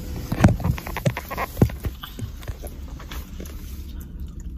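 Handling noise from a phone being gripped and turned round by hand: a quick run of knocks and rubs from fingers on the handset over the first couple of seconds, then a quieter steady low background.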